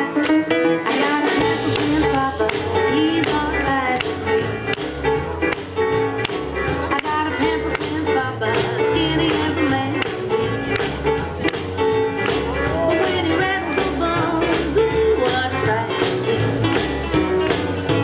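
Music with a steady beat; bass and drums come in about a second and a half in.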